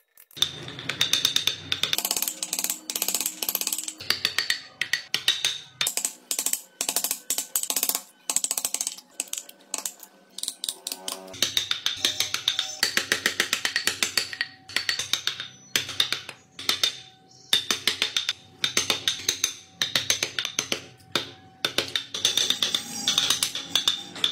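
Wood being hand-carved with steel gouges and chisels: a quick, irregular run of sharp clicks and knocks as the blades cut into the wood, with some ringing tones.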